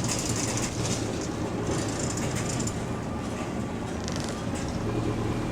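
Single-deck bus heard from inside the saloon while under way: a steady engine and road rumble with rattling from the body, and a few short stretches of high hiss, the first near the start and another about two seconds in.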